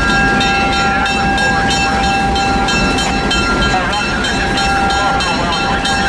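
Diesel-hauled passenger train approaching with a steady low rumble. A bell rings over it in quick, even strikes.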